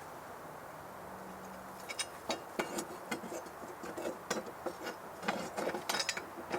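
Irregular metal clicks, clinks and light knocks from hand tools and parts being handled while a lawnmower blade and its bolt are refitted, starting about two seconds in.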